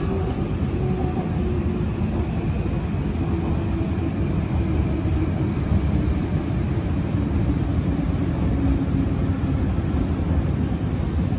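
Hanshin 'Jet Car' local electric train running, heard from just behind the cab: a steady rumble of wheels on rail with a faint motor whine that slowly falls in pitch as the train slows into a station.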